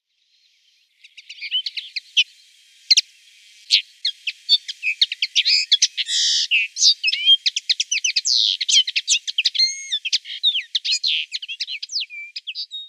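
Linnet singing: a fast, varied twittering song of quick chirps, short gliding notes and trills. It starts about a second in and grows denser and louder from the middle on.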